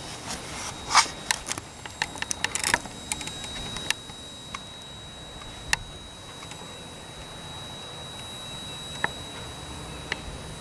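Coal hopper cars of a slow-moving freight train rolling past, with a low steady rumble under irregular sharp metallic clicks and clanks from the wheels and running gear. The clicks come thick and fast for about the first three seconds, then only a few single ones follow.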